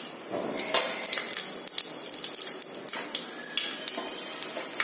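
Whole spices (cumin seeds, cloves, black peppercorns, cinnamon and bay leaf) sizzling and crackling in hot oil in a pressure cooker as they are tempered, with a spoon clinking against the pot as they are stirred.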